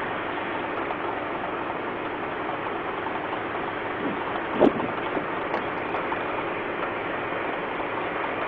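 Steady, even background noise with no voices, and one short knock about four and a half seconds in.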